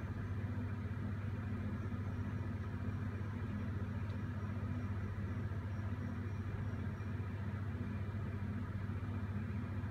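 A steady, unchanging low machine hum with a hiss over it.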